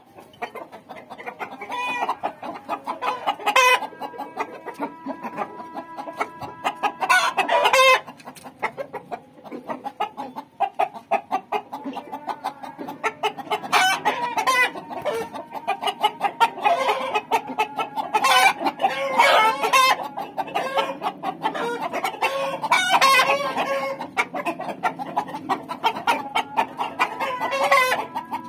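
Chickens clucking continuously in quick repeated notes, with several louder calls rising above the clucking at intervals.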